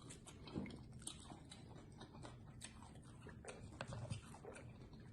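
Faint chewing with many small scattered mouth clicks and crunches, as people eat.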